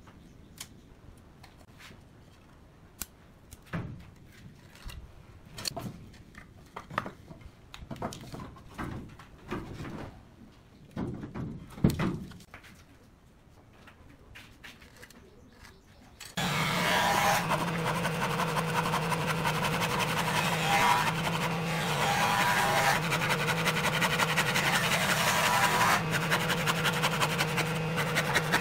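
Scattered light taps and clicks of a tape measure, pen and steel square handled on a pallet board. A little past halfway a loud steady hum with a noisy rasp sets in suddenly and runs on: a hand saw cutting through the pallet wood, with a constant machine-like drone under it.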